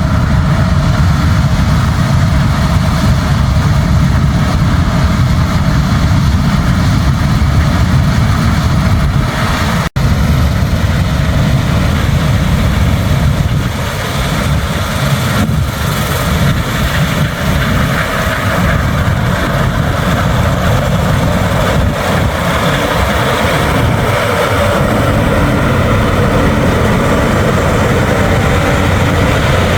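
New Holland CR10.90 combine harvester running under load while threshing barley: a steady, loud engine rumble mixed with the noise of the threshing and separating machinery. There is a momentary break in the sound about ten seconds in.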